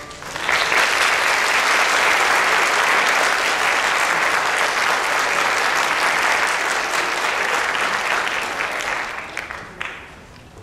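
Audience applauding: a dense, steady clapping that rises quickly about half a second in and fades out over the last two seconds, with a few last separate claps near the end.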